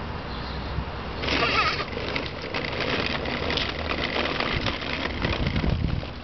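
A toy push walker's hard plastic wheels rolling and rattling over asphalt in a steady rumble of fine, irregular clicks. A short high squeal comes about a second and a half in.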